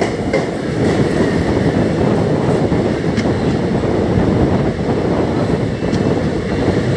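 Indian Railways passenger train (the 17644 Circar Express) rolling slowly along a station platform, heard from an open coach door: a steady rumble of wheels on rail with a few faint clicks.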